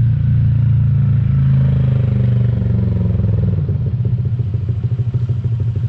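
Honda Click 125i scooter's single-cylinder engine through an Akrapovic carbon slip-on exhaust with the silencer insert removed. It runs steadily, its pitch falls off about two seconds in, and it settles into a rapid, even putter at idle.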